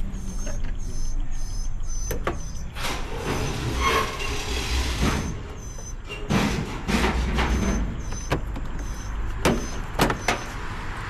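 Plastic push-pin trim tabs being worked out of a Dodge SRT8's front bumper: scattered clicks and snaps amid handling noise.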